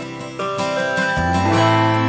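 Background music with guitar. New notes come in about half a second in, and a deep bass note joins a little over a second in.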